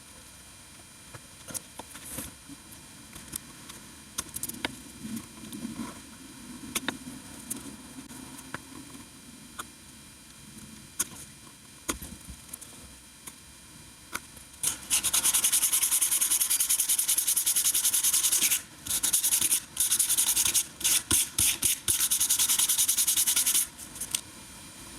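Sandpaper rubbing on the rubber dinghy patch to thin its edges: a loud steady rasping hiss lasting about nine seconds in the second half, broken by several short pauses. Before it, scattered light clicks and taps of handling.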